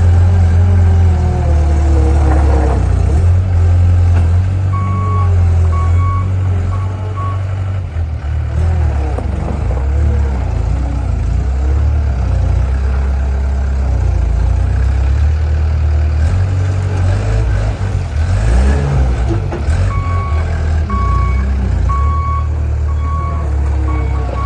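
Skid steer loader engine running under load, its pitch rising and falling in places, with a reversing alarm beeping in two spells, about five seconds in and again near the end.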